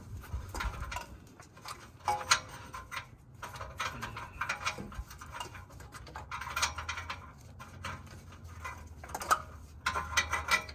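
Ratchet wrench clicking in short, irregular runs, with light metal tool clatter, as a turbo bolt is worked out.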